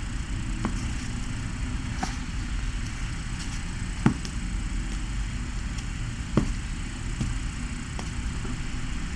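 Steady low room hum with a handful of separate soft clicks and knocks, the loudest about four seconds in and again a little past six seconds.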